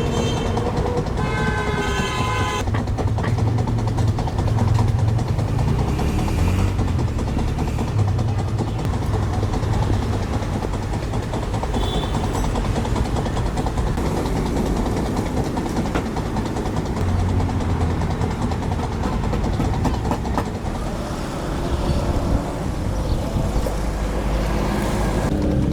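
A steady low mechanical rumble, with a short horn-like tone sounding about two seconds in.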